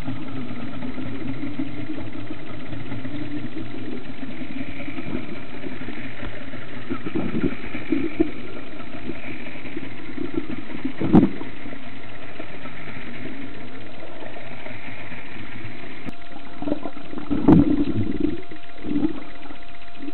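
A steady low motor drone heard through the water, as a boat engine sounds underwater, with two sharp knocks, about eleven seconds in and near the end.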